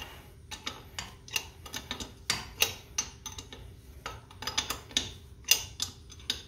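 Socket ratchet clicking in short, irregular strokes as nuts are run down onto carriage bolts at a steel tractor wheel rim: sharp separate clicks, a few per second.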